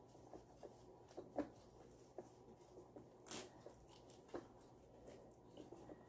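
Faint handling noise from a 3-in-1 child car seat: soft rustling of its padding and straps with a few light clicks and taps of plastic, the clearest a little after three seconds in.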